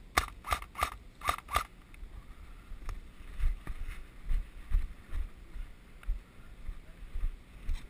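Five quick single shots from an airsoft rifle, fired one by one within about a second and a half. After that come footsteps thudding on dirt and twigs, about two steps a second.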